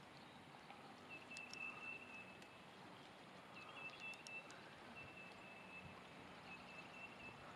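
Near silence: faint lakeside background, with a thin high whine that comes and goes several times and a few faint ticks.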